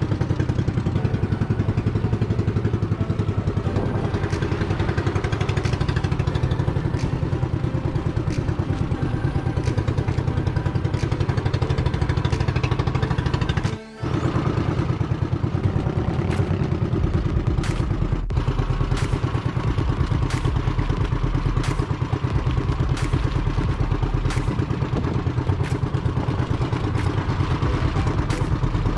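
The engine of a motorized outrigger fishing boat running steadily at sea, with a fast, even chugging. It drops out briefly about fourteen seconds in.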